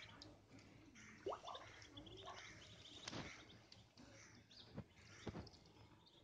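Muscovy ducklings peeping faintly in short, rapid high chirps, with a few sharp clicks.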